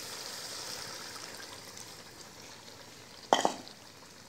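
Water poured from a bowl into a hot pan of frying keema and potatoes, hissing and sizzling as it hits the hot ghee, the sizzle dying down over the first couple of seconds. A short, loud knock about three seconds in.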